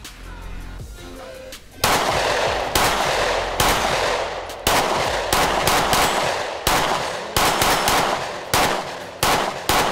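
Springfield Armory XDM Elite 3.8" compact pistol firing a string of about a dozen shots, starting about two seconds in and coming roughly one every half second.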